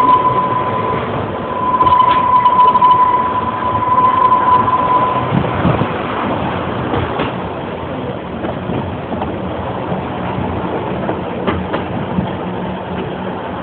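Train carriage running, heard from on board: a steady rumble and rattle. A loud, steady high tone sounds for about the first five seconds, with a short break near the start.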